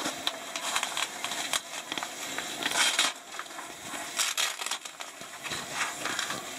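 Irregular rustling and crinkling, with louder crackly flurries about three seconds in and again around four and a half seconds.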